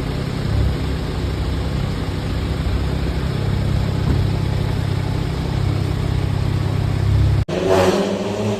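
BMW Z4 engine idling steadily, likely being test-run after its ignition coils were replaced. About seven and a half seconds in the sound cuts off abruptly and gives way to a louder, higher engine note.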